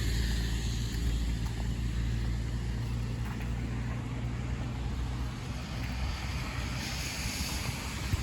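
A motor vehicle's engine running with a steady low hum that fades away about five seconds in, over a steady hiss.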